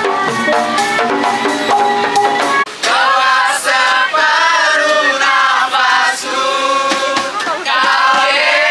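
Street percussion music with ringing gongs, steady pitched metal notes and a shaken rattle; about three seconds in it cuts to a group of young people singing together to guitar.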